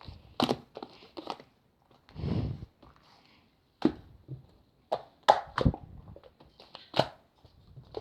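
Slime being squeezed and poked by hand: irregular sticky clicks and pops, with a longer squelch about two seconds in.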